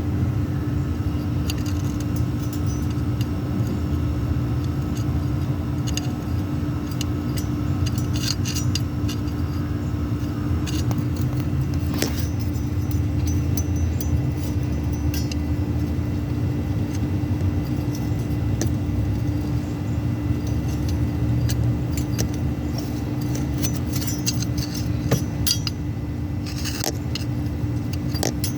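Cummins 5.9 12-valve inline-six diesel idling steadily, with scattered sharp ticks and clinks over it; the engine has an exhaust leak.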